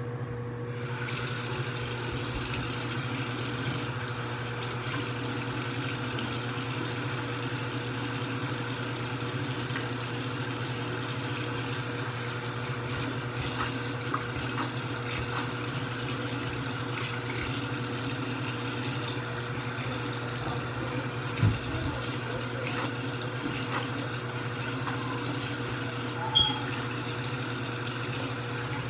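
Bathroom sink tap turned on about a second in, then running steadily into the basin. Two brief knocks stand out, one about three quarters of the way through and one near the end.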